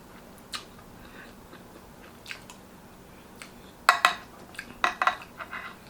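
Close-miked mukbang eating sounds: chewing with short wet mouth smacks and clicks, coming in scattered bursts, loudest around four to five seconds in.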